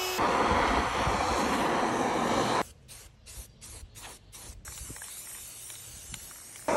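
Aerosol spray paint can hissing as black paint is sprayed onto a wooden carving: loud for the first couple of seconds, then quieter, in short bursts with brief gaps.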